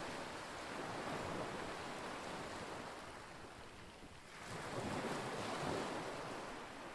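Wind and lake water: a steady rushing noise that swells and eases, dipping briefly about four seconds in and then rising again.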